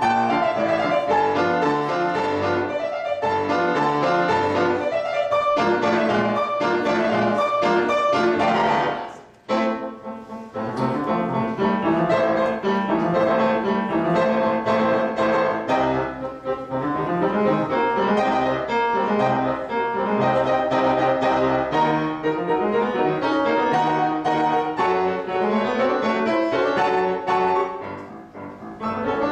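Solo grand piano being played, a classical-style piece with a brief pause about a third of the way in and a short softer moment near the end.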